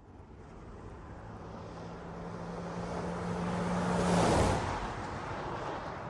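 A car passing by: engine and road noise grow louder to a peak about four seconds in, then fall away.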